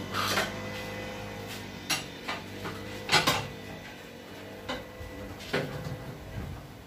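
Sharp metallic clinks and knocks of metal tools against metal, about six separate strikes, the loudest about three seconds in, over a faint steady machine hum.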